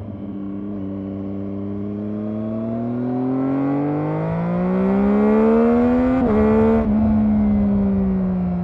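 Triumph Daytona 675R's stock-exhaust 675 cc inline three-cylinder engine pulling up through the revs under throttle for about six seconds. There is a brief break in the note near six seconds in, then the revs slowly fall away.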